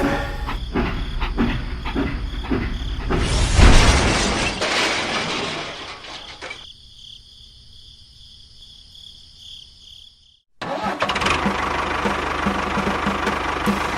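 Small engine of a DIY mini tractor running with a regular knocking beat. About three seconds in, a loud rushing noise swells and fades into a quieter stretch with a steady high whine. It cuts out suddenly and then goes back to the running engine.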